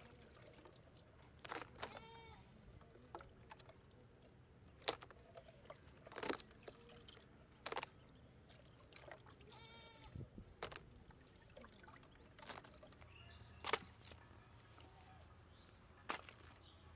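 Faint outdoor background with about seven sharp clicks or taps scattered through it, and two brief animal calls, one about two seconds in and one near the middle.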